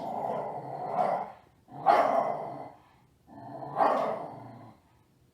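A dog vocalizing with three drawn-out calls, each about a second long. The middle call is the loudest.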